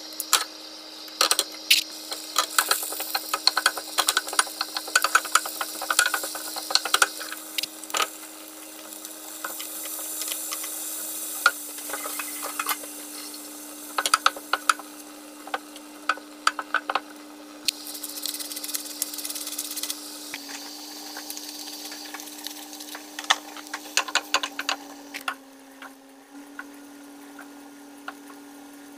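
Prawns sizzling and crackling in hot oil in a frying pan, with a wooden spatula stirring and scraping against the pan, over a steady low hum. The crackling thins out near the end.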